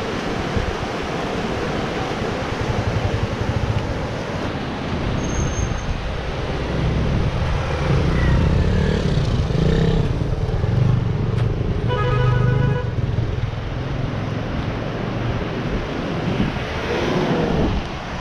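Road traffic with a steady engine rumble and noise. A vehicle horn honks briefly about two-thirds of the way through.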